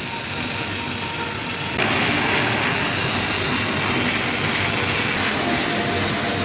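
Machinery running steadily with a low hum. About two seconds in it suddenly turns louder and hissier.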